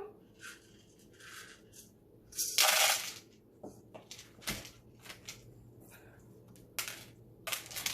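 Small plastic beads rattling and clicking in their container as they are handled and poured out, with one longer pouring rush about two and a half seconds in and a few sharp clicks near the end.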